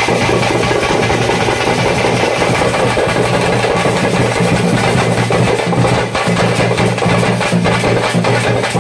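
Loud, continuous festival music driven by fast drumming from a drum troupe, playing for a costumed dancer.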